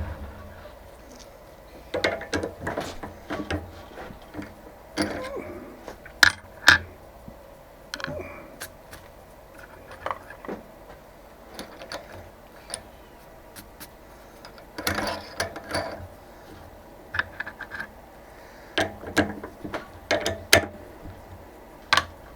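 Scattered metal clicks, clinks and knocks of tools and machine parts being handled, in short clusters.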